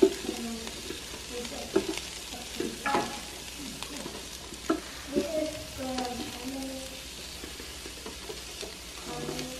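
Raw sausages and bell pepper strips sizzling on the hot grate of a preheated Ninja Foodi grill, with soft knocks now and then as pepper pieces are set down by hand.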